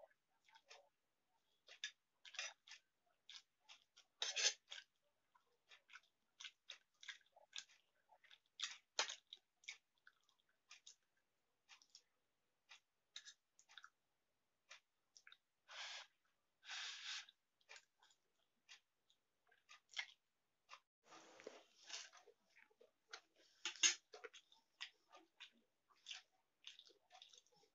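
Close-miked eating sounds from a person eating Maggi instant noodles: many short wet mouth clicks and smacks of chewing, with a few longer slurps as strands are drawn in.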